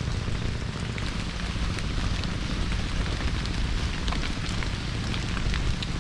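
Heavy rain falling on a tarp shelter: a steady hiss with many small drop ticks throughout.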